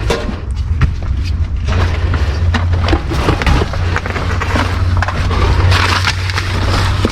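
Trash being rummaged through in a dumpster: irregular rustling, clattering and knocking of discarded items, over a steady low hum.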